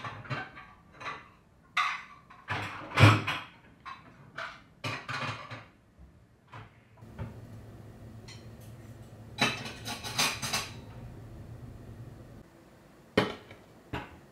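Dishes and cutlery clattering and knocking as a table is set, with a quick string of sharp knocks in the first few seconds. A low steady hum runs through the middle, and two sharp clicks come near the end.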